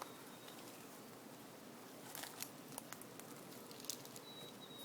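Faint rustling and a few light clicks and knocks as beehive equipment is handled, the sharpest click about four seconds in.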